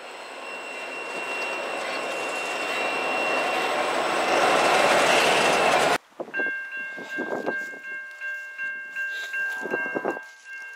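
Loaded covered hopper cars of a freight train rolling past close by, the wheel-and-rail noise growing steadily louder until it cuts off suddenly about six seconds in. After that, several steady high ringing tones sound together, broken at intervals.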